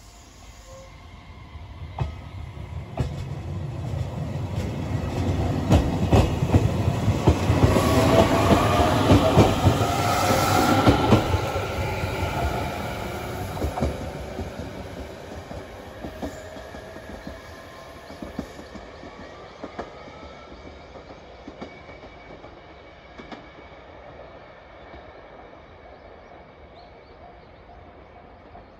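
JR Kyushu 815 series electric train pulling out and accelerating away: a rising motor whine and wheels clicking over the rail joints, loudest about eight to eleven seconds in as it passes, then fading into the distance.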